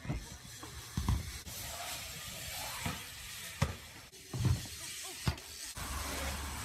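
BMX bikes riding ramps and concrete: a run of about six irregular thumps and knocks from tyres and landings, over a steady hiss.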